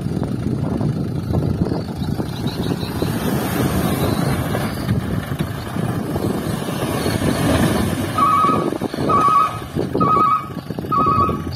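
Diesel dump truck running with its bed tipped up as the load of soil slides out. Near the end a beeping alarm sounds four times, about a second apart.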